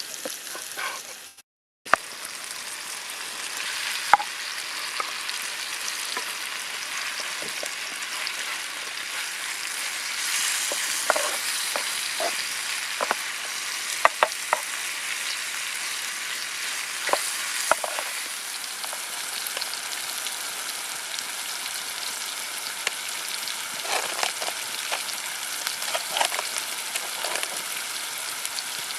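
Chopped vegetables and chicken sizzling in butter in a pan over embers, with occasional sharp clicks of a utensil stirring against the pan. The sound cuts out for a moment about a second and a half in.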